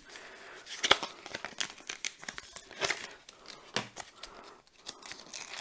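Plastic packaging of a clear photopolymer stamp set crinkling as it is handled and opened, with irregular soft crackles and clicks.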